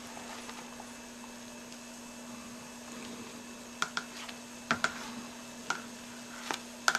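Plastic stirring paddle clicking and knocking against a plastic fermenting bucket while blueberry must is stirred: a handful of sharp knocks in the second half, over a steady low hum.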